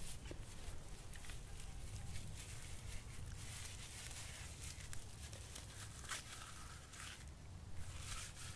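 Dry plant fibres being pulled apart and rubbed between the hands, making a rustling, crackling sound with many small snaps, over a low steady rumble.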